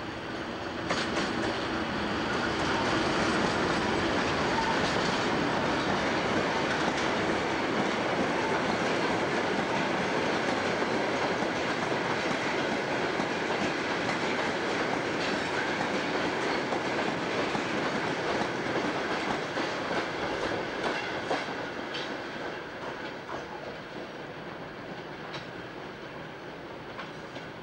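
BR Class 37 diesel locomotive with its English Electric engine passing close at the head of a loaded ballast train, then the hopper wagons rumbling by with a clickety-clack over the rail joints. The sound swells about a second in, holds steady, and fades over the last several seconds as the train draws away.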